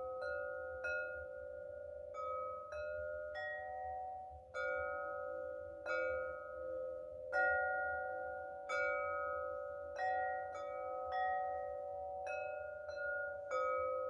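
A set of Tibetan singing bowls struck one after another with a padded stick, about one strike a second. Each bowl rings on with a steady tone that overlaps the next strike, and the pitch changes as different bowls are hit.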